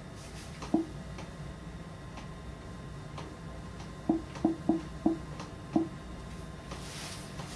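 Light ticking about once a second, with six sharper clicks: one just under a second in and a quick run of five between about four and six seconds. A brief soft hiss near the end.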